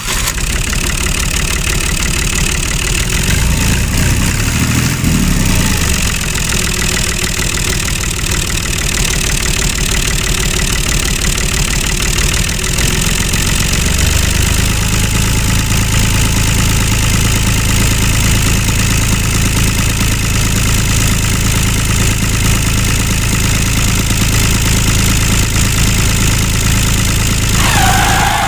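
Tractor engine running steadily, with a steady low hum that comes in about halfway.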